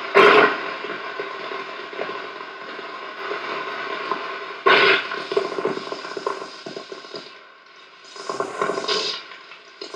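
Ambient electronic soundtrack of layered sustained droning tones, with sudden swells at the start and about five seconds in. It dies down briefly around seven to eight seconds, then rises again.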